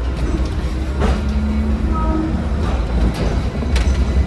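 Hong Kong double-decker electric tram (VVVF-drive car No. 54) running on its rails: a steady low rumble with scattered clicks and rattles, and a brief faint tone about a second in.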